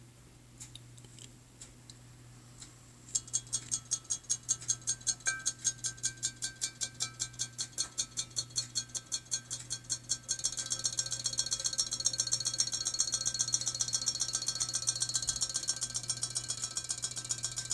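Battery-powered robot shark toy swimming in a cut-glass bowl of water, its tail mechanism clicking at about five times a second. About ten seconds in the clicking becomes faster and louder. A low hum runs underneath.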